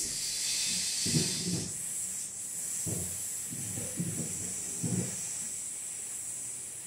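Steady hiss under a man's breathing: several short, heavy breaths, with soft low sounds from the throat, as the session closes.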